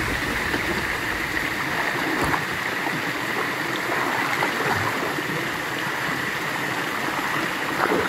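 Steady rush of flowing water, like a stream or waterfall pouring continuously, with a few faint ticks.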